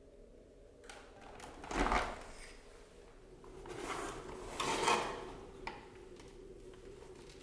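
Plastic parts of a Dyson DC14 upright vacuum being handled as its hose is taken off or fitted: rubbing and scraping, with a sharp knock about two seconds in and a longer, louder scrape around four to five seconds in.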